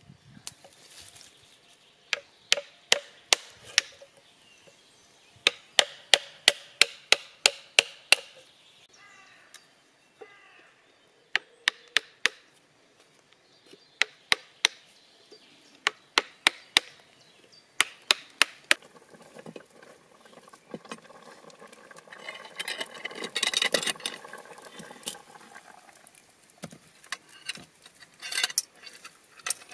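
A metal hand tool struck into a wooden block to hollow it out, heard as runs of sharp knocks at about three to four a second with short pauses between runs. Later comes a longer stretch of rough scraping.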